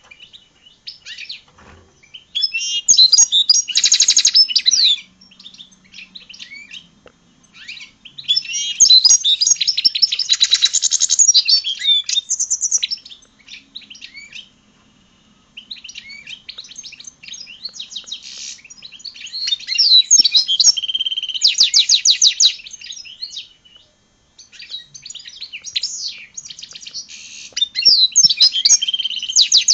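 European goldfinch × red siskin hybrid singing: long phrases of rapid twittering notes and fast trills, four phrases with short pauses between them.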